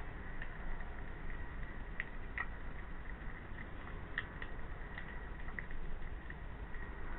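A hedgehog eating from a plate, its chewing and nosing at the food giving scattered, irregular small clicks over a steady low hiss.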